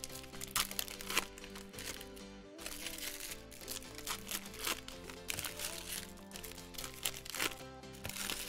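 Plastic trading-card pack wrappers crinkling as packs are torn open and handled, in repeated short crackles over steady background music.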